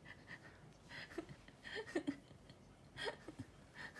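A man laughing quietly to himself in a few short, breathy chuckles.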